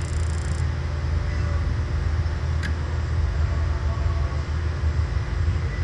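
Gas water heater running through an ignition attempt after its igniter was cleaned, a steady low mechanical rumble with a single sharp click about two and a half seconds in; it does not light.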